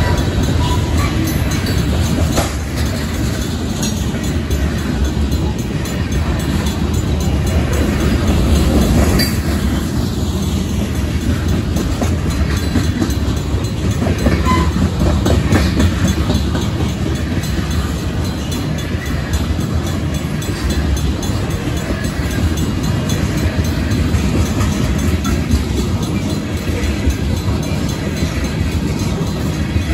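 Freight train of covered hopper cars and tank cars rolling through a road grade crossing: a steady, loud rumble of steel wheels on the rails, clattering over the crossing.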